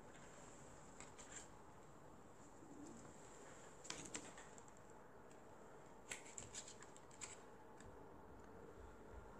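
Faint clicks and rustles of harmonica packaging being handled, in a few short clusters about a second in, about four seconds in, and again around six to seven seconds in, over near silence.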